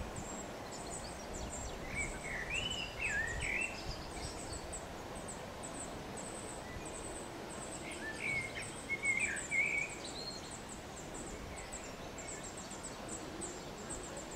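Outdoor woodland ambience with a songbird singing two short warbling phrases, about two seconds in and again about eight seconds in, over a steady hiss and a continuous run of rapid, very high ticking.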